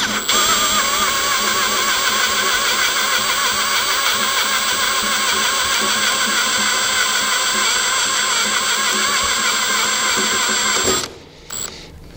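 Milwaukee M18 cordless drill running steadily as a twist bit drills out the head of a rivet on a throttle body's motor cover, its motor whine wavering slightly under load. It stops about a second before the end.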